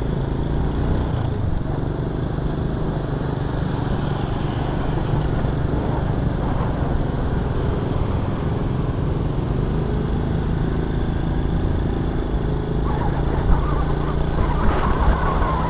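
Honda Astrea Star's small single-cylinder four-stroke engine running steadily as the motorcycle rides along, a continuous low drone with road noise.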